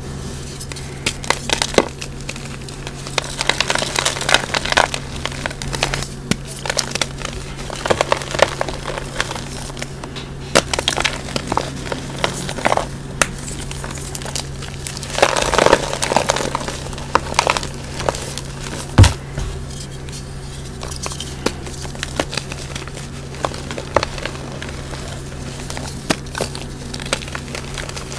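Pressed gym chalk reforms crunching and crumbling as hands squeeze them into powder, in irregular crackly bursts that are densest a little past halfway. A single low thump comes about two-thirds of the way through, over a steady low hum.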